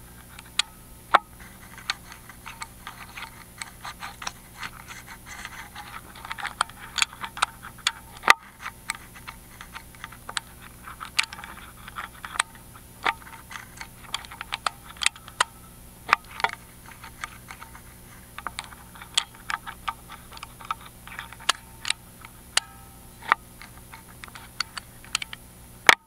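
Irregular light clicks and ticks of a lock pick lifting the spooled magnetic pins inside a Miwa EC cylinder lock held under tension, the pins clicking as they move. A steady low hum sits underneath.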